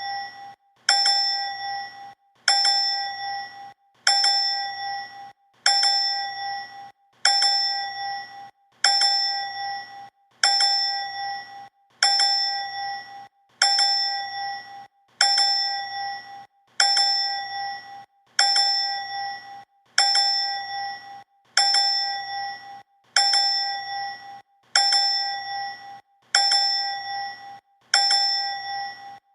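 A bright bell ding struck twice in quick succession, then ringing out and fading. The pair repeats evenly about every second and a half, as a looped sound effect.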